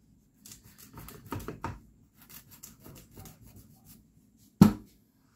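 Kitchen knife cutting through watermelon rind in a series of short scraping, crunching strokes, trimming the rim level. About four and a half seconds in comes a single loud knock, the loudest sound here.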